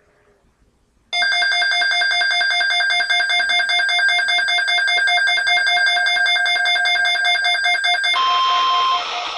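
NOAA Weather Radio emergency alert tones: a loud, harsh electronic warble of rapid data tones that begins suddenly about a second in and runs for about seven seconds. It gives way to radio hiss with a single steady beep lasting about a second near the end.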